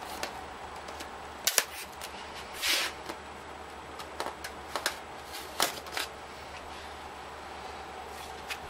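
Hands handling a polystyrene foam packaging box: scattered sharp clicks and knocks, with a short scraping rustle about two and a half seconds in. A fan hums steadily underneath.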